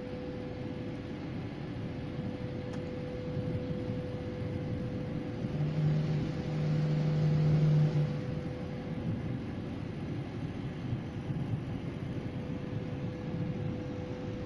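Steady low outdoor rumble with a constant faint hum. About halfway through, a vehicle engine swells for two or three seconds and then fades.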